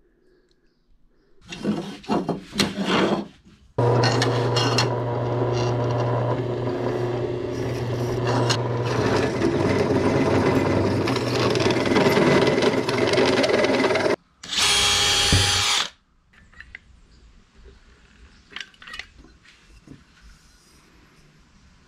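Benchtop drill press running for about ten seconds, its motor humming steadily as the bit cuts holes through aluminium angle. It follows some clatter of handling, and is followed by a short, brighter power-tool burst of about a second and a half, then light clicks of parts being handled.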